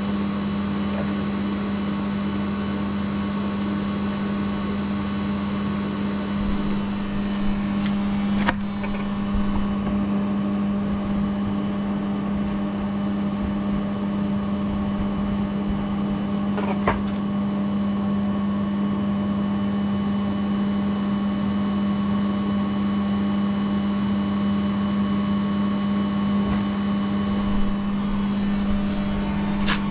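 Steady machine hum with a strong low tone and several fainter higher tones, broken by a sharp click about a third of the way in, another just past halfway, and one at the end.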